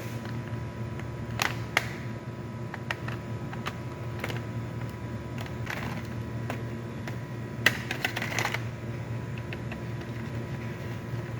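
Irregular clicks and taps of a laptop's plastic case and parts being handled and pried during disassembly, with a short run of rattling clicks about eight seconds in, over a steady low hum.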